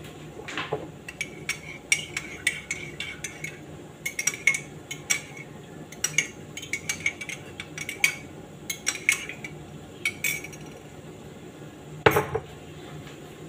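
A metal spoon clinking against the inside of a mug as a drink is stirred: irregular, bright clinks several times a second that ring briefly. Near the end there is one louder knock.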